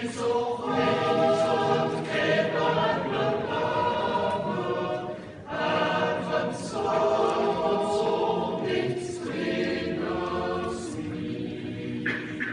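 Swiss yodel club choir singing a cappella in a steady choral song, with a short breath break between phrases about five seconds in.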